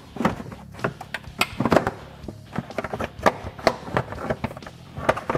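Plastic clutch cover of a Polaris Ranger XP 1000 knocking and scraping against the frame and brake line as it is worked loose by hand. It gives irregular sharp clacks and rattles, several a second.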